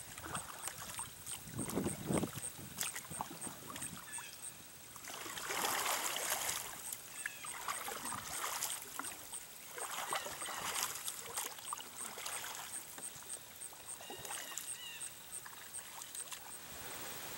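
Kayak paddle strokes in shallow pond water, a swishing splash every two seconds or so as the kayak is paddled away. A few low knocks come in the first couple of seconds as it gets under way.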